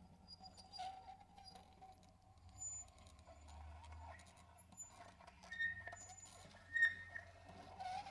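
Quiet, sparse free improvisation on soprano saxophone and prepared guitar: a soft wavering tone under scattered small clicks and scrapes, with short high tones in the second half and a sharp accent about seven seconds in.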